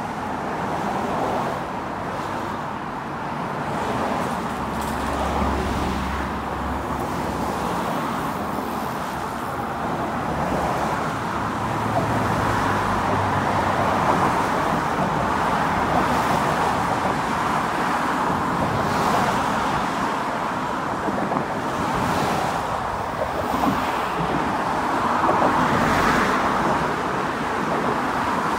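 Road traffic: a continuous hiss of cars passing along the road, swelling and fading as vehicles go by, with a louder pass near the end.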